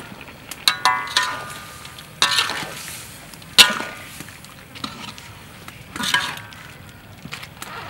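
Metal spatula scraping and clanging against a metal wok as stingray pieces are stir-fried, about five ringing strikes, the loudest about halfway through, over a steady sizzle from the frying.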